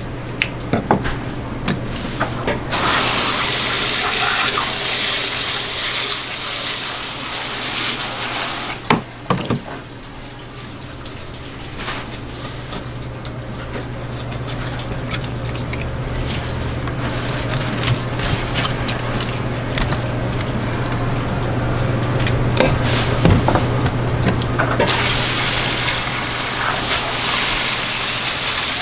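Hose spray gun jetting water onto a plastic cutting board and fish, in two long hissing spells: from about three seconds in to nine seconds, and again from about twenty-five seconds in. Between them come sharp knife clicks and taps as a large yellowtail's head is cut apart, over a steady low hum.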